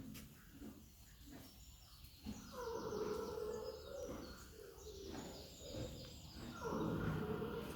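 An animal snoring in its sleep: two long snoring breaths about four seconds apart, with birds chirping in the background.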